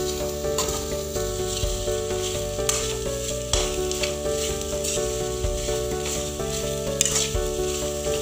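Soya chunks sizzling in hot oil in a kadai as a metal spatula stirs them, with the spatula now and then scraping and knocking on the pan. A background melody plays under it.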